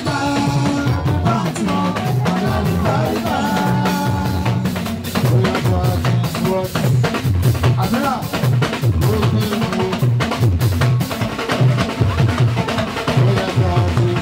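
Live band music amplified through a PA: a drum kit with snare, rimshots and bass drum beating densely under a man singing through a microphone.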